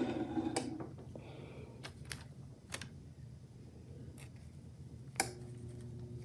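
A handful of light clicks and taps from handling sheets and the hoodie on a heat press, over a faint steady hum. The sharpest click comes about five seconds in, after which a faint steady tone joins the hum.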